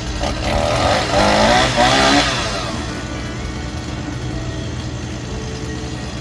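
A motor revs up and falls back over about two seconds, over the steady hum of an engine running throughout.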